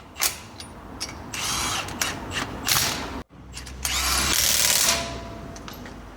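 Wheel nuts being run onto a car's wheel with a power wrench, in several short bursts, the longest about a second long near the middle.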